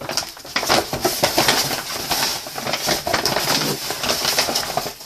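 Handling noise: a dense run of rustling, clicking and crackling as baking soda is handled at a homemade clay volcano.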